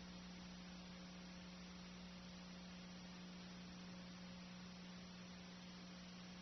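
Near silence: a steady low electrical hum with faint hiss, the noise floor of a silent old video-tape transfer with no game sound on it.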